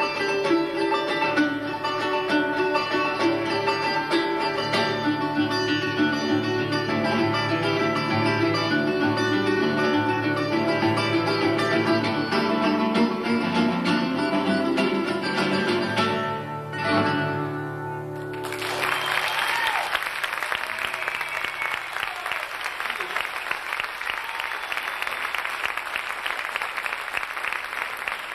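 Puerto Rican cuatro and classical guitar playing an instrumental duet, which ends on a final chord about seventeen seconds in. An audience then applauds steadily to the end.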